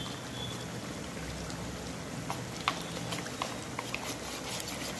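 Thick soy-and-capsicum gravy boiling hard in a wok over a gas flame, a steady bubbling with scattered small pops.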